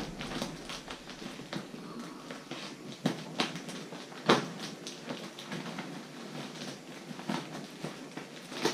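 Shipping packaging being handled and cut open: scattered rustling and crinkling with irregular clicks and a few sharper knocks.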